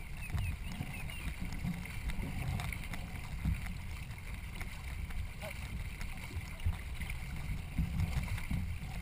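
Wind rumbling on the microphone, over faint water and paddle sounds from racing canoes.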